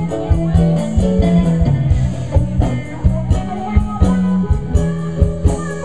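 Live band playing amplified music: electric guitar over a steady drum beat and a low bass line.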